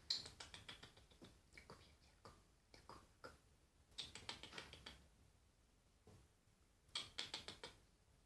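Faint bursts of quick scratching taps, several a second, as a kitten is played with around a blanket on the floor: the strongest flurries come just after the start, around four seconds in and again near seven seconds.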